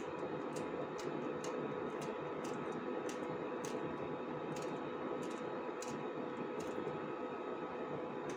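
Small kitchen knife slicing green chillies held in the hand, each cut a short sharp click, about one to two a second, stopping after six or seven seconds. A steady background hiss runs underneath.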